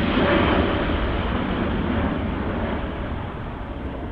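Boeing 787-8 airliner's twin turbofan engines at takeoff power as it climbs away. The steady jet noise fades gradually as the aircraft recedes.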